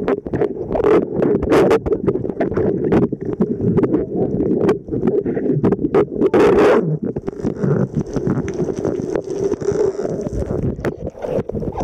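Muffled water noise picked up by a camera held underwater during a snorkel, with frequent knocks and splashes against the housing. A longer rush of water comes about six and a half seconds in.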